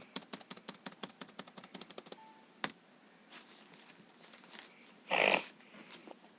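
A fast run of sharp mechanical clicks, about ten a second for two seconds, then a single louder click and, near the end, a short burst of noise.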